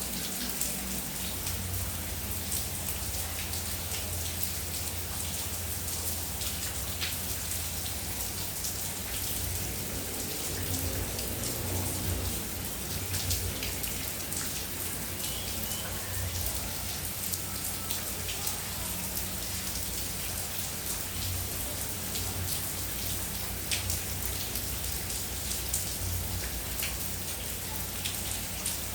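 Steady rain falling, with individual drops landing close by as scattered sharp ticks over an even hiss.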